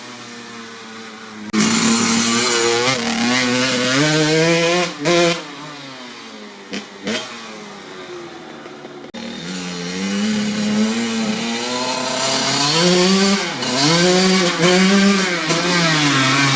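Kawasaki KX80 80cc two-stroke dirt bike engine with a Dep S2 silencer, revved in repeated blips, its pitch climbing and falling again. In the middle it drops back to a quieter, lower running speed with a couple of quick short blips, then it revs up again several times.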